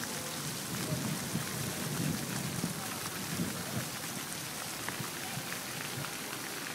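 Wind buffeting the microphone in irregular low gusts over a steady outdoor hiss.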